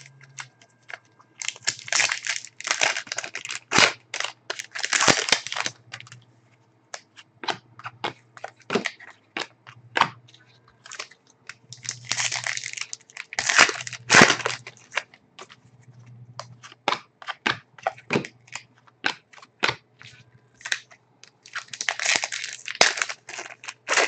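Foil wrappers of Upper Deck SPX hockey card packs being torn open and crinkled by hand. It comes in several bursts of crackling, with scattered sharp clicks between them.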